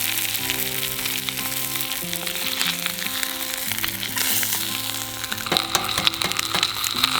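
Thick-cut bacon sizzling and frying in a hot pan over a campfire, the sizzle surging about four seconds in, with a few sharp clicks near the end. A light background music melody plays underneath.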